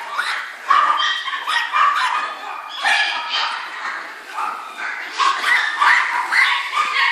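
Several dogs barking and yipping over one another, high-pitched and almost without pause.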